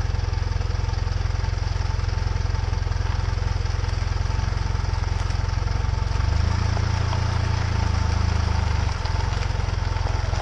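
Truck engine and exhaust idling with a steady low rumble, heard from underneath the vehicle. It grows louder for about two and a half seconds starting about six seconds in, then settles back.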